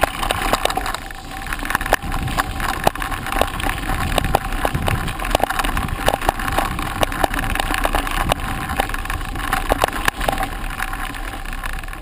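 Mountain bike rolling fast over a rough dirt-and-gravel forest road: the tyres crunch and the bike rattles, with frequent sharp knocks over the uneven ground.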